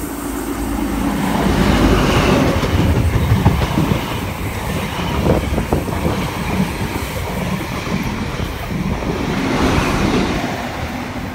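XPT express train passing at speed. It grows loud over the first two seconds as the diesel power car goes by, then the carriages' wheels clatter over the rails, easing off near the end.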